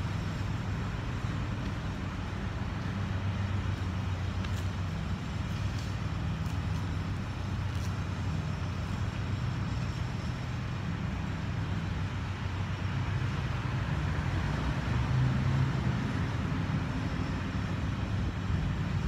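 Steady low rumble of road traffic with a constant low hum, and a few faint clicks in the first half.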